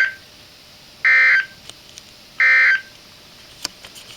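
Emergency Alert System end-of-message code: short bursts of buzzing digital SAME data tones, the end of one right at the start and then two more about a second and a half apart, marking the close of the alert.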